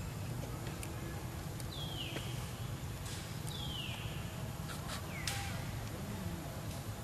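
Three short, high animal calls, each sliding down in pitch, about a second and a half apart, over a steady low outdoor rumble.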